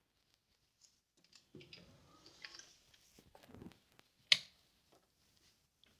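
Soft rustling handling noise as plush toys are moved by hand, then a single sharp click about four seconds in.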